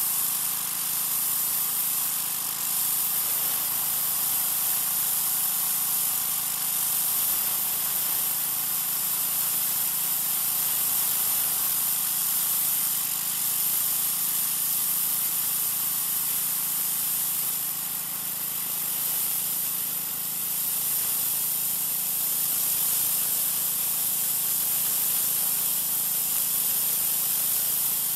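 Troy-Bilt 2200 psi pressure washer with an oscillating tip spraying water onto a concrete sidewalk: a steady hiss of the water jet, with the machine's even hum underneath.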